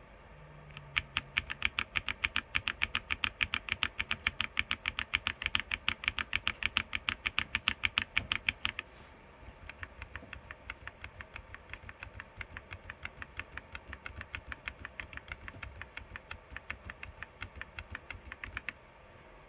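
Keychron C3 Pro mechanical keyboard keys pressed in a rapid, even run of clicks, several a second. About nine seconds in there is a short break, and a second, quieter run follows. The two runs compare the keys with and without silencing rings.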